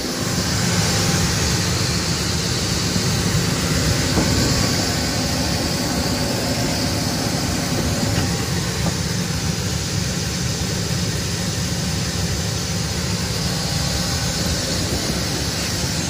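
Combine harvester running while its unloading auger empties soybeans into a grain cart, heard from inside the cab as a steady, even machine noise.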